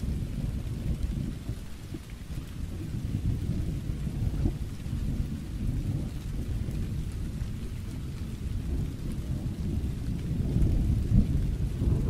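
Thunderstorm: low thunder rumbling continuously over steady rain. The rumble eases about two seconds in and swells again near the end.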